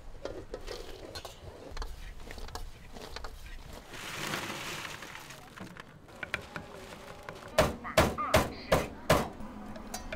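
Food-stall clatter: scattered clicks and knocks, a brief hiss about four seconds in, then five loud sharp knocks in quick succession near the end.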